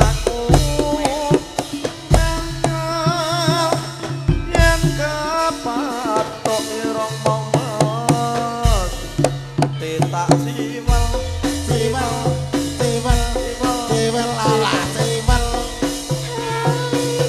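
Javanese gamelan music for a tayub dance, driven by kendang hand-drum patterns, with a wavering melody line above.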